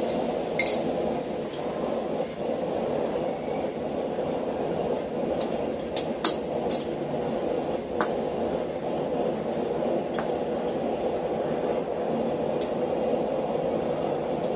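Steel hand-forged box wrenches and tools clinking and tapping against a steel block and a bolt: about ten scattered sharp metallic clinks, the loudest a little past six seconds in, over a steady rumble.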